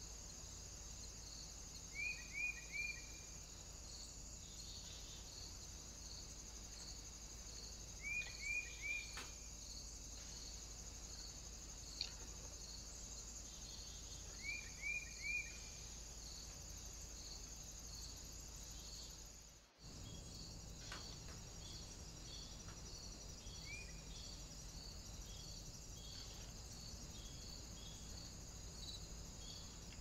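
Steady chorus of crickets or bush-crickets: a continuous high buzz with evenly repeated chirps, about two a second. Over it, a bird gives short bursts of three quick notes three times, then a shorter call once more later on.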